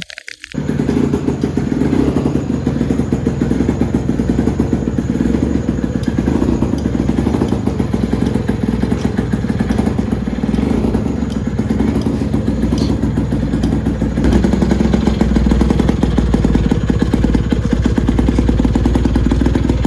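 Honda Gyro X three-wheeled scooter's 50cc two-stroke engine running steadily. It comes in abruptly about half a second in and gets a little louder about two-thirds of the way through.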